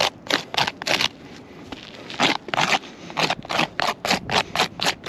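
Repeated gritty scraping strokes on asphalt roof shingles, about three a second, with a short pause about a second in.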